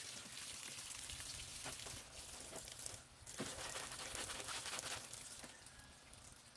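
Wet laundry being scrubbed, squeezed and splashed by hand in a concrete washtub, a watery rubbing noise that breaks briefly about three seconds in and eases off about five seconds in.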